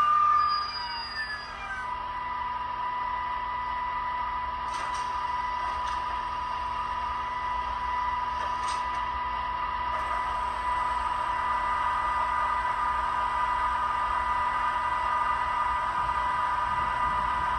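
Model Turboliner's onboard sound playing a steady, high turbine whine as the train stands at the platform, with a few faint clicks.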